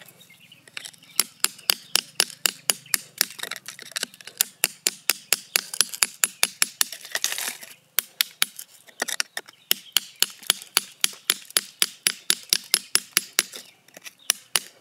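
Pointed steel rod striking and chipping hard, gravelly soil around a buried stone: a steady series of sharp taps, about three a second, with a short scraping stretch and a brief pause just after halfway.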